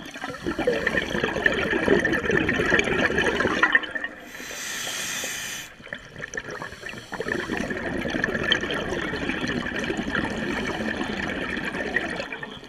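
Scuba regulator breathing underwater: a long stretch of bubbling exhaled air, a smoother hiss of inhalation about four seconds in, then bubbling again from about seven seconds.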